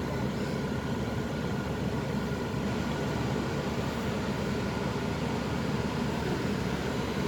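Steady vehicle noise on a toll road: a low engine hum under an even rush of road noise, with no horn sounding.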